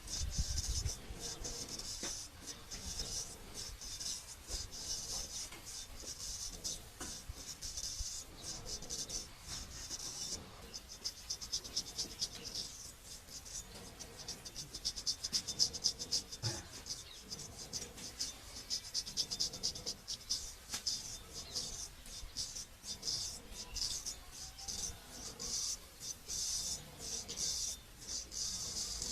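Traditional straight razor scraping over stubble in quick, short, dry rasping strokes, one after another.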